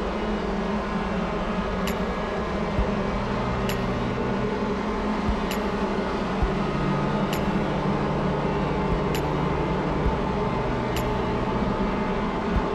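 A steady mechanical hum with several low droning tones, and a short sharp tick about every two seconds, six times.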